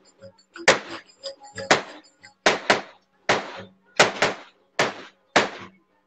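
Large double-headed Turkish drum (davul) beaten alone in a dance rhythm: about nine strong strokes, some single and some in quick pairs, each with a short ringing boom.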